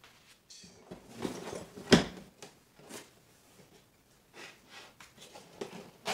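Cardboard faucet box being handled and turned over on a countertop: scraping and rustling of cardboard, with one sharp knock about two seconds in.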